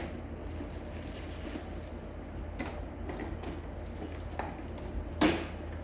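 Plastic clicks and knocks of a canister vacuum cleaner's body being handled and its cover unlatched and opened, with one louder snap about five seconds in.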